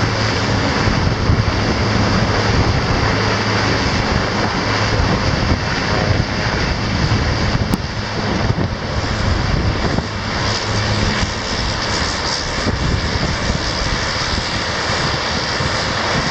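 Twin-engine turboprop airliner at takeoff power on its takeoff roll: a loud, steady propeller and engine noise that gets a little quieter in the second half as the plane runs away down the runway.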